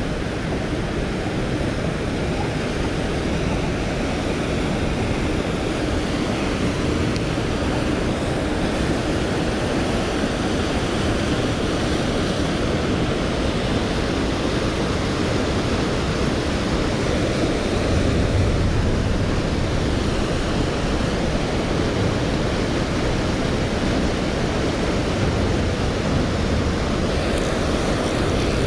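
Steady rush of river water spilling over a low dam and churning in the whitewater below it, with a deeper rumble swelling for a couple of seconds about two-thirds of the way through.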